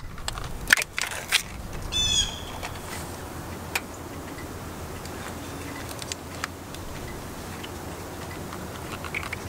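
Sharp clicks and light knocks of hands handling a fuse and wiring on a zero-turn mower, several in the first second and a half and a few fainter ones later. A songbird chirps briefly about two seconds in.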